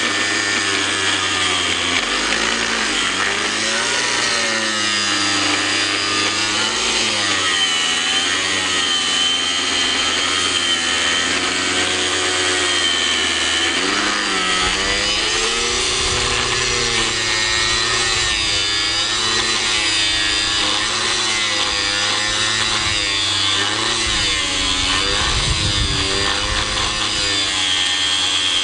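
Hitachi 125 mm angle grinder cutting through a thick steel bar. The motor's whine wavers in pitch as the disc is pressed in and eased off, with a heavier low rumble joining about halfway through and again near the end.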